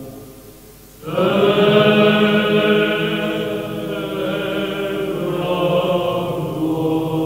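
Orthodox church chant sung in long held notes: one phrase fades out and a new phrase begins about a second in.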